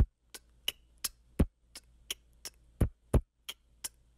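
A steady drum beat of deep kick hits with sharper snare and hi-hat ticks between them, about three hits a second, over a faint low hum. It is the guide beat for a beatbox pattern.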